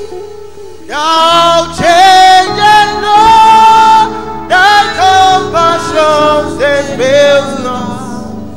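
A man singing a gospel praise song into a handheld microphone over steady instrumental backing. He holds long notes, sliding up into pitch at the start of each phrase. The singing begins about a second in.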